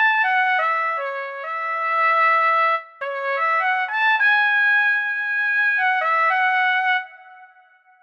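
Sampled piccolo trumpet (UVI Orchestral Suite's Trumpet Piccolo solo patch) playing a melody one note at a time, with a short break about three seconds in. The last note stops about seven seconds in, and its large-hall reverb tail fades away.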